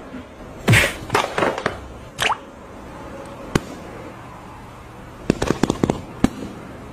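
A French bulldog gives a few short, sharp barks in the first couple of seconds, one of them falling in pitch. A quick run of sharp clicks follows about five seconds in.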